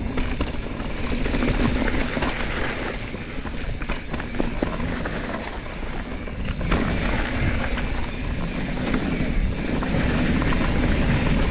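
Mountain bike rolling downhill on a dirt trail: a steady rumble of tyres and wind on the microphone, with scattered clicks and rattles as the bike goes over bumps.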